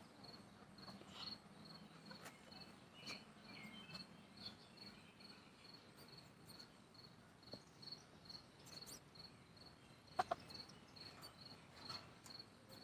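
A cricket chirping steadily and faintly, one high note repeated about twice a second. A few faint clicks and a brief tap about ten seconds in.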